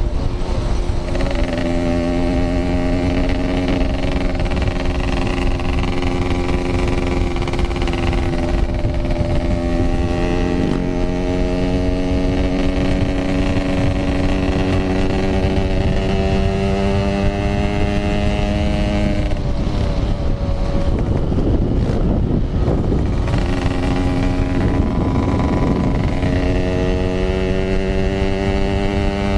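Yamaha RX-King 135cc two-stroke single running under way, its pitch climbing slowly as the bike gathers speed. About two-thirds through the pitch drops sharply and the engine is masked for a few seconds by rushing wind noise before it comes back.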